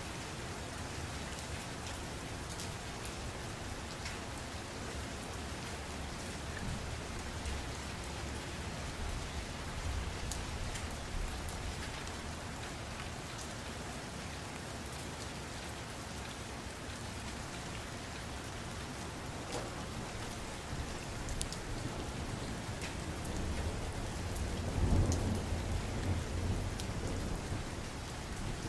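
Steady rain falling, with a low rumble of thunder swelling near the end.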